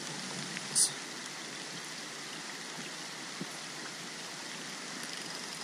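Heavy rain falling on the surface of a still stream, a steady hiss. A brief high swish comes a little under a second in.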